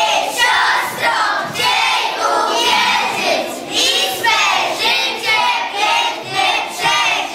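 Many children's voices together in unison, in a run of short, loud, rhythmic phrases.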